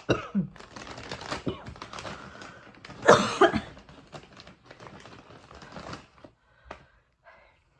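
Rustling and rapid clicking of something being handled, with a short loud vocal sound about three seconds in, tailing off after about six seconds.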